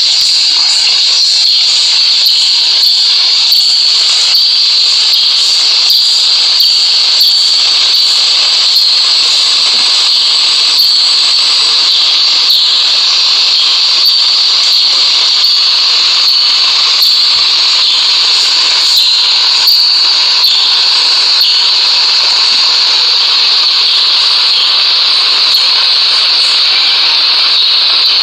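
GEMC 48-inch ceiling fan running: a steady, loud hiss with a faint tick repeating about every three-quarters of a second.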